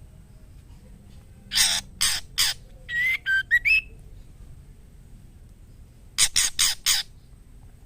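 Female white-rumped shama calling to a male: three harsh rasping notes, then a quick run of short whistled notes that rise in pitch, then four more harsh notes near the end.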